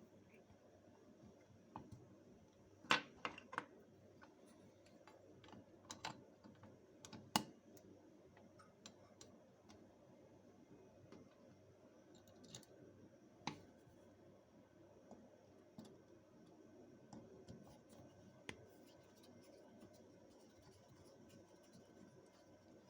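Scattered faint clicks and taps of small tools and parts being handled during hand work on a motorcycle carburetor, a few sharper knocks among them, over a quiet room.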